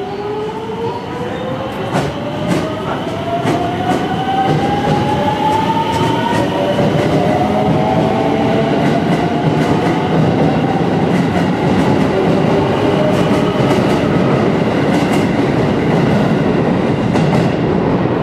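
A JR West 281 series Haruka limited express pulls out of an underground station. Its traction-motor inverter whine rises in pitch over the first several seconds as the train accelerates. This gives way to a steady, building rumble of wheels on rail with scattered clicks as the cars pass.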